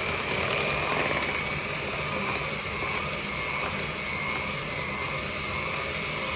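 Electric mixer running steadily at speed, beating cake batter, with a constant motor whine.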